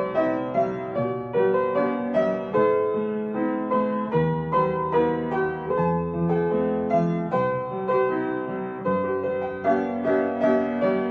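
Soft piano music: a gentle melody of notes played every half second or so over held low bass notes.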